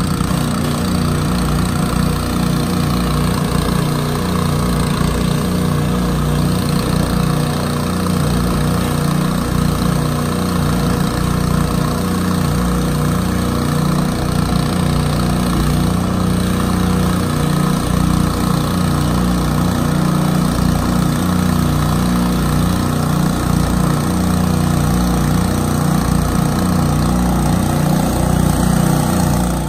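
Small gasoline engine of a pressure washer running steadily at a constant speed while the wand sprays, its low hum unbroken.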